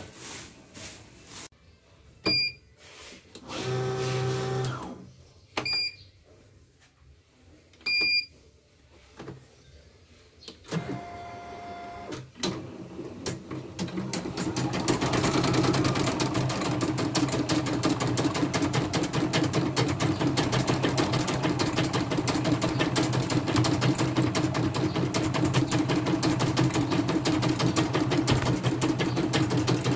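A CNY portable computerized embroidery machine: three short beeps and two brief motor whirs early on, then from about 14 seconds in it stitches steadily, a fast even needle clatter over a motor hum.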